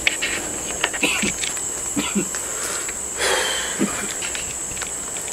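Crickets trilling in a steady, high-pitched night chorus, with scattered small clicks and a brief rustle about three seconds in.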